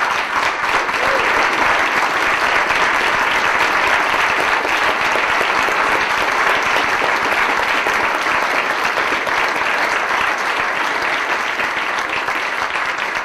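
Audience applauding: dense, steady clapping from a large group.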